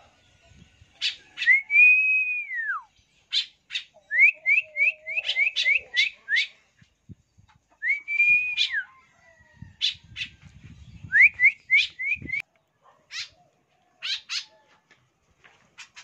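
Whistled bird-calling: one long note that rises and falls, then a quick run of short rising whistles, repeated, used to call tame free-flying birds home. Short sharp bird chirps come in between the whistles.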